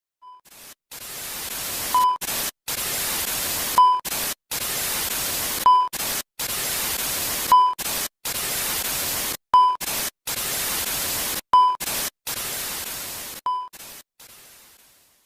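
Loud TV-style static hiss, cut by short dropouts, with a short beep repeating about every two seconds, seven or eight times, fading out near the end: an edited static-and-beep sound effect.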